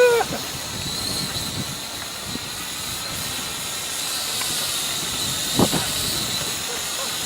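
Syma X5 quadcopter's small electric motors whining high up, the whine swelling and fading as the drone fights a gusty wind, over a steady hiss of wind on the microphone. The uneven note sounds as if the drone is about to conk out, though it may just be the wind.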